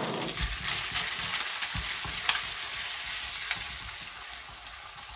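Octopus tentacles frying in melted butter in a frying pan: a steady sizzle with a few sharp crackles.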